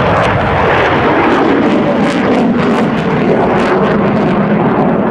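Boeing F-15C Eagle's twin Pratt & Whitney F100 turbofans in afterburner as the jet climbs away overhead: a loud, steady, crackling rush.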